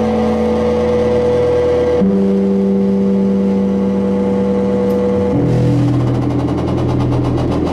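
Live electronic drone music: loud, steady held tones that shift to new, lower pitches about two seconds in and again about five seconds in.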